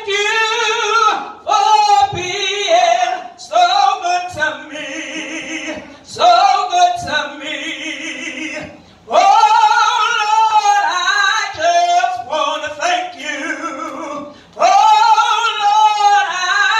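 A woman singing a slow gospel praise song in long phrases, holding and sliding between notes, with short breaths between lines.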